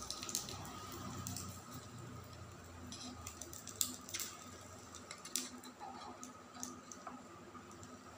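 Light, scattered clicks and taps of a metal fork against a small drink can used as a toy frying pan, over a faint steady hum.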